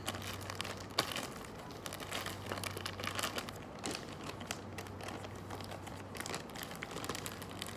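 Plastic crinkling and rustling with small scattered clicks and taps: plastic bags and toys being handled and packed away.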